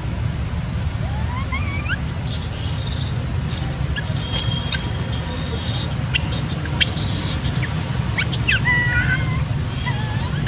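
Young long-tailed macaque screaming: a run of short, shrill, rising-and-falling squeals from about two seconds in until near the end, over a steady low rumble.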